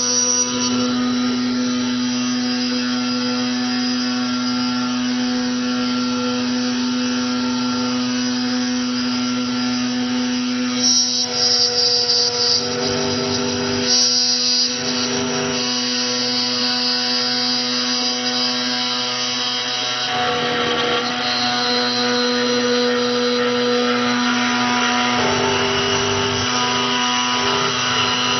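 CNC key cutting machine's cutter motor running with a steady whine as it mills the cuts into the second side of a double-sided car key. The grinding shifts and brightens a little over a third of the way in, and again around the middle and about two-thirds of the way through, as the cutter works along the blade.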